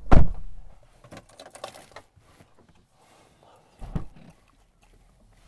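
A car door shutting with a heavy thud right at the start, followed by faint rustling and clicks and a second, softer thump about four seconds in.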